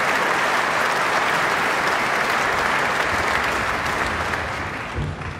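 Audience applauding, the clapping thinning and dying away over the last second or so.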